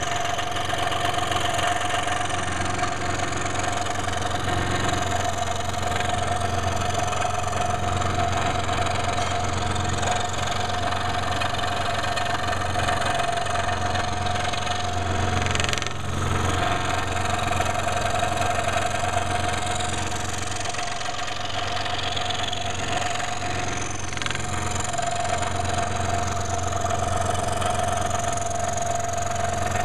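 Electric saw running steadily while cutting curved lines in a wooden board for a jigsaw puzzle, with a constant motor hum and whine, and one brief click about halfway through.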